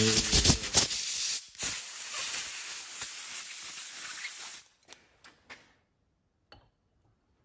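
A pressurised jet hissing at the motorcycle shock absorber's piston in two blasts, a short one and then a longer one of about three seconds, as the piston is cleaned. A few light clicks of handling follow.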